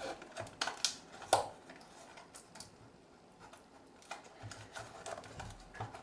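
Cardboard-and-plastic headphone packaging handled and pried at by hand: a series of sharp clicks, taps and rustles, the strongest in the first second and a half, with lighter ones later.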